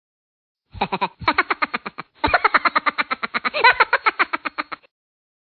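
Edited-in cartoon-style sound effect: a rapid run of short pitched blips, about ten a second, like sped-up gibberish chatter, in two runs with a short break about two seconds in.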